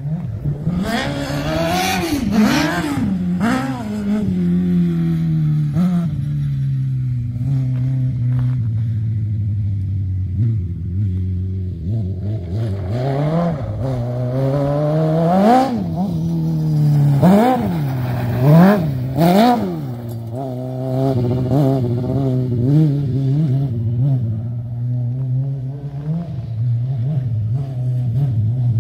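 Honda CBR600RR inline-four motorcycle engine in a go-kart, revving hard several times a couple of seconds in, then running steadier and lower. About halfway through it revs up and down sharply again several times, then settles back to a lower, unsteady run.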